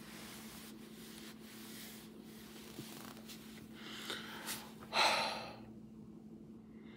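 A person's breath: one heavy exhale about five seconds in, with faint rustling of hands and clothing as he lifts his hands to his head, over a steady low hum.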